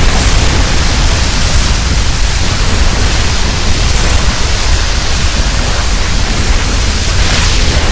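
Loud, steady hiss of noise with a strong low rumble beneath it and no distinct pitched calls: a King Ghidorah monster sound effect.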